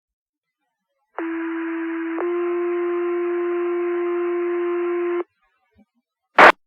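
Two-tone sequential fire-department pager alert over dispatch radio: a lower tone for about a second, then a slightly higher tone held for about three seconds, stopping abruptly. Near the end a short, loud burst of radio static.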